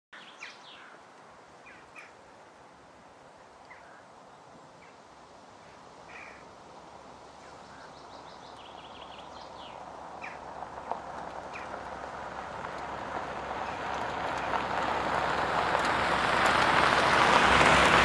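Birds chirping in short scattered calls, then a car approaching on a driveway: a steady tyre-and-engine noise that grows louder through the second half.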